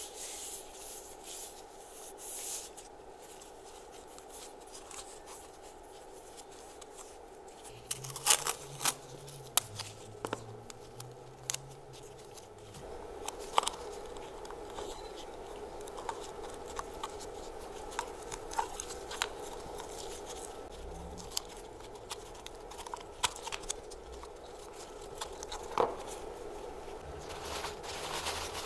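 Close-up handling of masking tape around a brake caliper's piston bore: tape crackling and tearing, with sharp ticks and scrapes of a thin metal tool against the caliper. A paper towel crinkles near the end.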